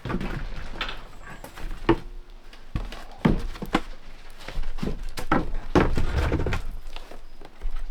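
Irregular knocks, clunks and short scrapes of hand work inside a wooden boat's hull, as old fittings are pulled out.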